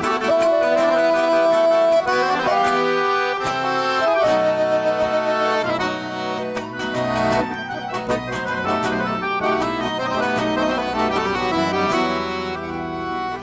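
Accordion playing an instrumental break between sung verses of a gaúcho song, with bass accompaniment and quick, regular note attacks.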